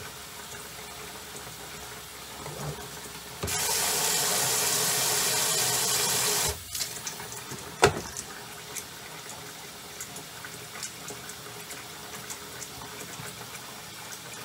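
Faucet running hot water into a utility tub with a steady splash as it fills. A few seconds in, a much louder rush of water starts and stops abruptly after about three seconds, and soon after there is a single sharp knock.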